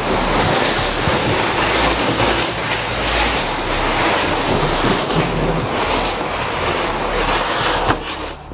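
Large cardboard shipping carton dragged across a brick-paver patio: a steady, rough scraping that stops near the end.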